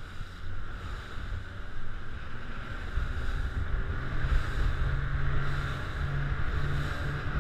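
Rigid inflatable rescue boat under way at speed: its engine drones steadily under wind buffeting the head-mounted camera and water rushing and slapping along the hull. The engine note firms up and grows a little louder about three seconds in.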